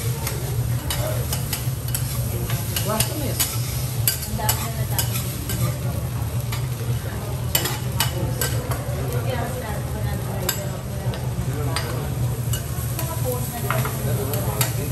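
Japanese fried rice sizzling on a teppanyaki griddle while it is stirred and chopped with two metal spatulas, the spatulas clicking and scraping on the steel plate at an irregular pace. A steady low hum runs underneath.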